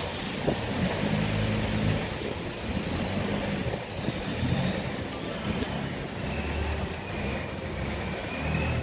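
Engine running steadily, its low hum rising and falling a little, with a few faint high whistling tones above it.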